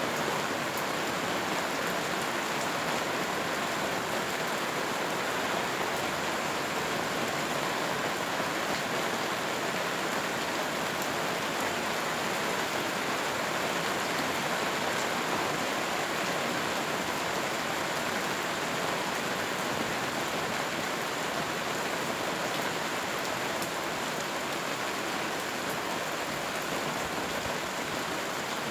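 Steady rain falling: a dense, even hiss with scattered drop ticks, unchanging throughout.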